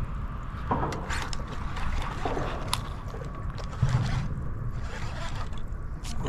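Wind and small waves lapping against a small skiff's hull, with a few scattered clicks and knocks from the rod and reel while a hooked fish is fought.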